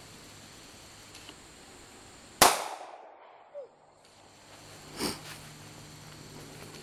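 Hi-Point C-9 9mm pistol firing one loud shot about two and a half seconds in, with a short echoing tail. A fainter sharp crack follows about two and a half seconds later.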